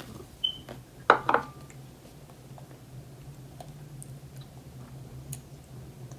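Crockery on a table: a bowl set down with a light knock about a second in, and a few faint clinks and ticks of bowls, over a low steady hum.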